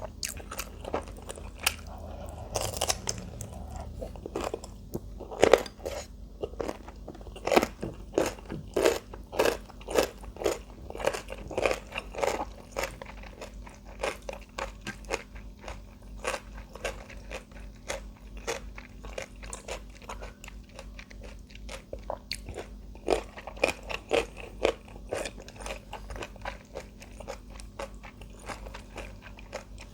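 Close-miked crunchy chewing of kimchi, a person biting and crunching mouthful after mouthful in quick runs of sharp crunches.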